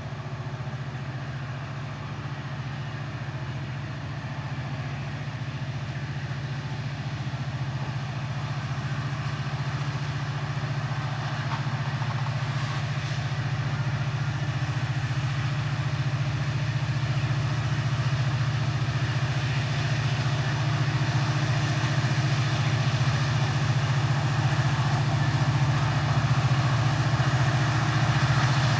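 Train locomotive engine running with a steady low drone, growing gradually louder as it draws nearer.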